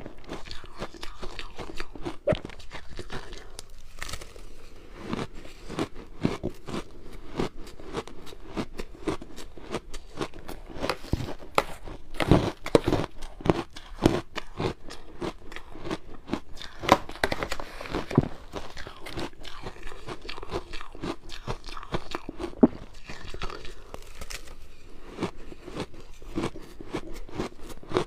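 Purple ice being bitten and chewed, a dense, irregular run of crisp cracks and crunches.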